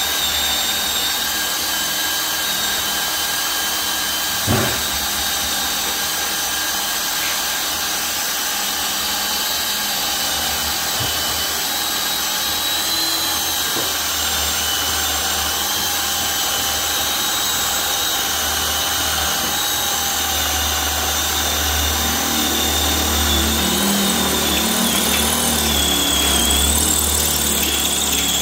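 Cordless battery drill running under load as an 11.5 mm Dormer A002 high-speed-steel bit bores into a thick steel section without a pilot hole. A steady motor whine and cutting noise, with one short knock about four and a half seconds in, growing slightly louder near the end.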